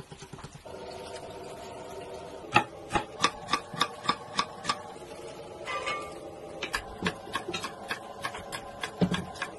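Eggs beaten in a glass measuring jug with quick light clicks, then a chef's knife chopping onion on an end-grain wooden cutting board. The chopping is a run of sharp, even knocks about three a second, a brief scrape, and a second, less regular run of knocks.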